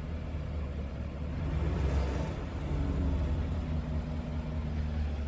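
Car engine running at low speed with a steady low rumble as the car rolls slowly, swelling a little about two seconds in.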